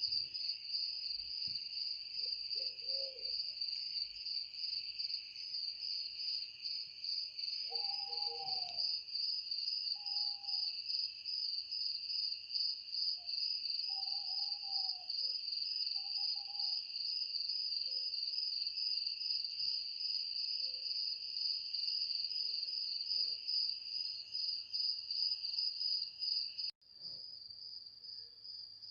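Chorus of crickets trilling steadily, with a few short, low hooting calls scattered through the first half. The sound cuts out for an instant near the end and comes back quieter.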